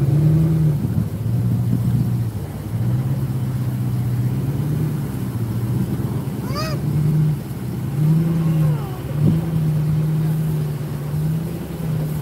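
A vehicle engine running at a steady low hum, its pitch stepping up and down between two speeds several times, with brief short calls about halfway and two-thirds through.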